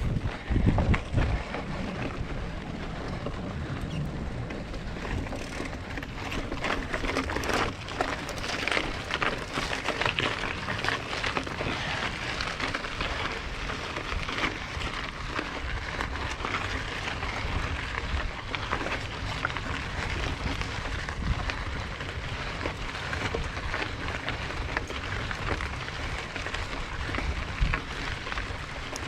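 Mountain bike rolling over a rough dirt trail: a steady crackle of tyres and grit, with low wind buffeting on the microphone in the first second or so.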